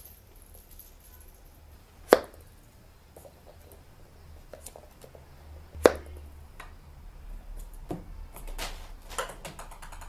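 Two sharp knocks about two and six seconds in, then lighter scattered clicks and rustling, as kittens play with a small toy ball.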